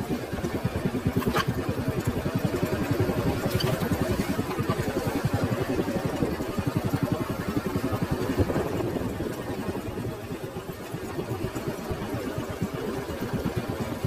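Small motorcycle engine running at low, steady speed over rough ground, its exhaust beating in a fast, even putter that eases a little about ten seconds in.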